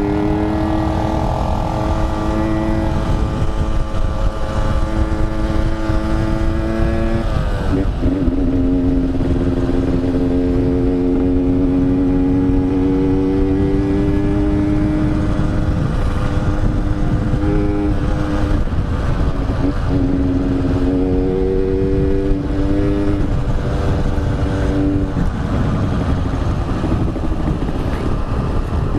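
Yamaha RX-King's single-cylinder two-stroke engine running hard on the road, its pitch steady, then dropping and picking up again at gear changes about seven and a half seconds in and again around twenty and twenty-three seconds. Wind rumble on the microphone underneath.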